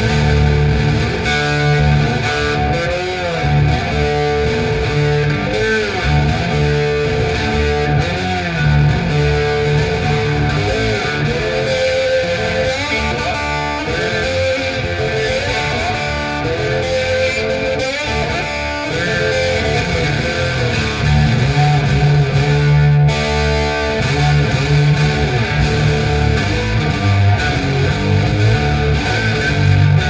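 Electric guitar instrumental: a lead guitar line with bent notes over steady, held low notes.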